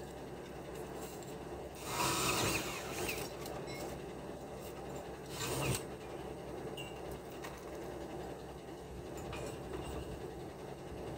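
Scraping and rubbing noise, in two louder spells, about two seconds in and again near six seconds, over a steady low background rumble.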